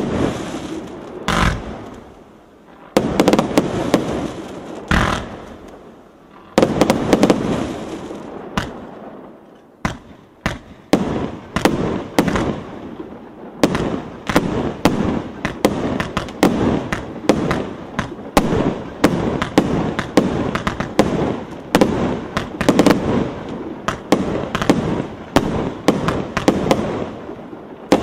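A 100-shot, 1.2-inch consumer fireworks battery firing: sharp launch thumps and aerial bursts. The first few shots are spaced out, each followed by a trailing hiss; from about ten seconds in they come quickly, one after another.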